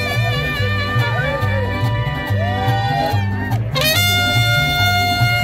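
Swing-style jazz music with a steady, repeating bass line under a melody; a new held chord comes in about four seconds in.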